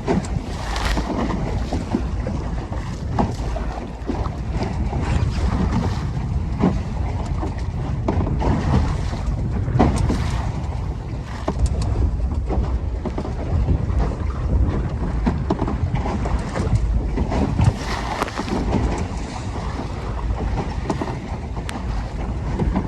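Wind buffeting the microphone over the rush of water along a Mirror 16 sailing dinghy's hull as it beats upwind in a fresh breeze. Waves splash and slap against the boat at irregular moments.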